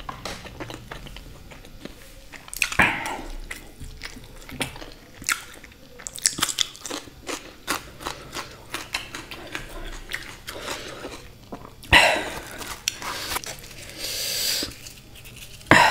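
Close-miked chewing of a mouthful of tandoori soya chaap: wet smacks and lip clicks with a few louder bites and crunches.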